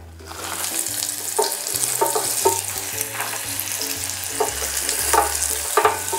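Sliced red onion frying in hot ghee with whole spices in a small stainless steel saucepan: a steady sizzle, with short scrapes of a wooden spatula stirring through it now and then.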